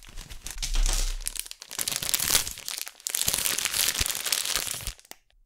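Plastic packaging crinkling and rustling as a parcel is opened and a bundle of small plastic retail packets is pulled out and handled. It stops about five seconds in.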